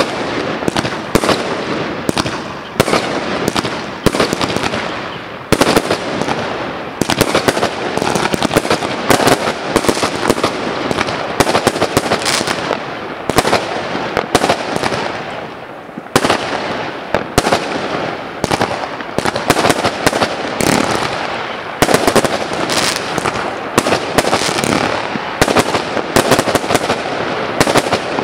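Aerial fireworks bursting in rapid succession: a dense run of sharp bangs over continuous crackling, with a brief lull about halfway through.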